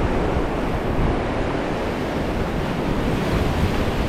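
Ocean surf washing steadily against a rocky shore, with wind rumbling on the microphone.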